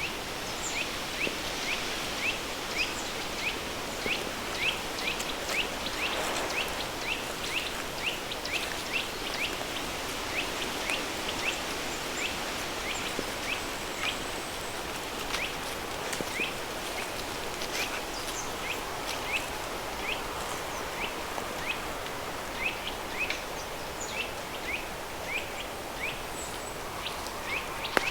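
Steady rush of a flowing river stream blended with added pink noise. A bird chirps short high notes over it about twice a second, less often in the middle.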